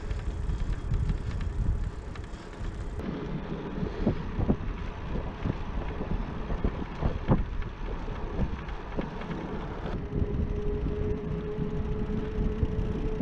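Wind rushing over the microphone of a handlebar-mounted camera as a touring bicycle rides along a paved road, with a few sharp clicks and knocks from the bike in the middle and a faint steady tone near the end.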